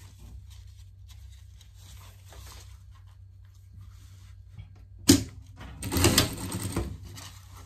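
Industrial lockstitch sewing machine: a sharp click about five seconds in, then a short burst of rapid stitching lasting about a second. Before that, only quiet fabric handling over a low steady hum.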